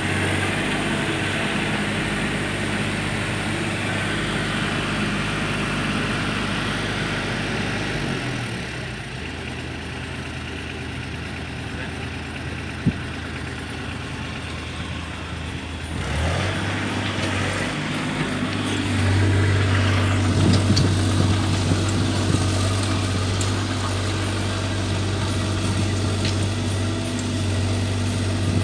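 Caterpillar 303C mini excavator's diesel engine running steadily. It eases off for a while, with a single sharp knock in the middle, then revs up and works harder over the second half as the machine drives up out of the deep pit on its tracks, with a few metal clanks.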